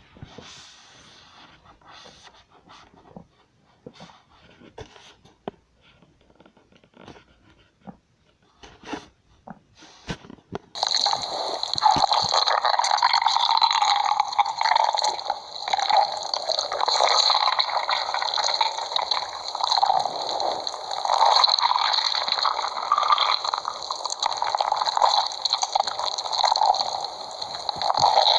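Cartoon stomach growl sound effect: a long, loud gurgling rumble that starts suddenly about eleven seconds in and swells and ebbs in waves. Before it, only faint scattered clicks.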